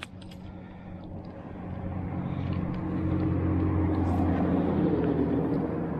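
A motor vehicle passing close by: a steady low engine and road hum that swells over the first few seconds, is loudest around the middle, then eases off.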